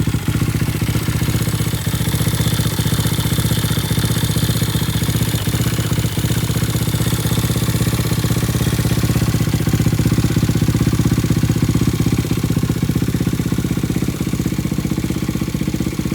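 Single-cylinder four-stroke engine of a Chinese Monkey-style minibike idling steadily through an aftermarket Akrapovič-style slip-on silencer, a rapid, even exhaust beat.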